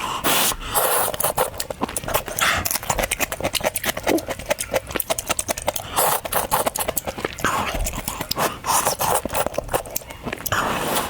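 Close-up slurping and chewing of instant noodles: long wet slurps every couple of seconds, with mouth clicks and smacking in between.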